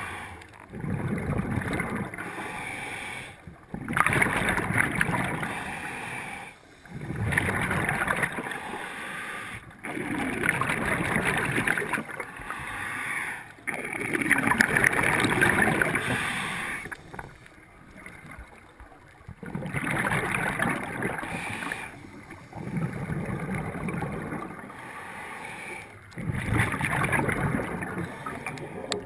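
A scuba diver breathing through a regulator underwater: rushing, gurgling bursts of breath and exhaled bubbles that repeat every few seconds in a steady rhythm.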